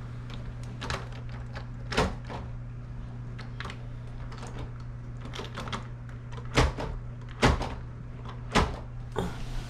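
Plastic LEGO pieces being handled: scattered light clicks with a few louder knocks, over a steady low hum.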